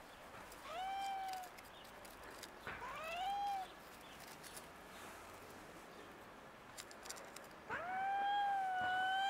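Street cat meowing in drawn-out calls: a short one about a second in, a rising one around three seconds, then a long held call near the end.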